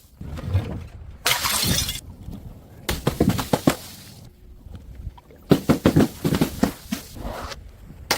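Glass bottles smashing: a shattering crash about a second in, and several runs of quick clattering knocks of glass hitting hard steps and breaking.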